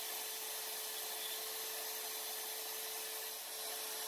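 Portable band saw running and cutting through 12L14 steel bar stock clamped in a vise: a steady sawing hiss with a constant mid-pitched hum.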